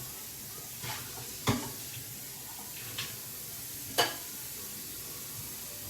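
Hot oil sizzling steadily in a pan on the stove, with four sharp clinks of kitchenware, the loudest about a second and a half and four seconds in.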